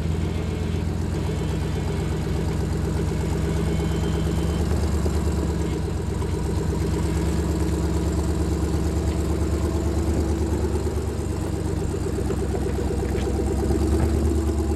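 Rock crawler's engine running at low revs as it pulls the vehicle slowly up a steep rock ledge, a steady, throbbing note that picks up a little near the end.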